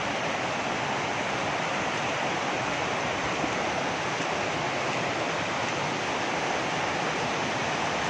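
Steady rushing of a muddy, rain-swollen rocky stream, its water churning white over boulders.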